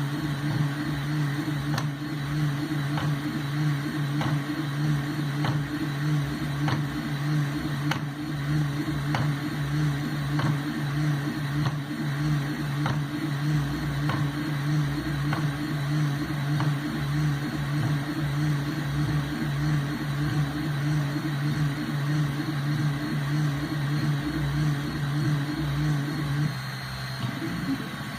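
Desktop laser engraving machine running: a steady motor hum with faint regular ticks about once a second. The hum changes and drops in level near the end.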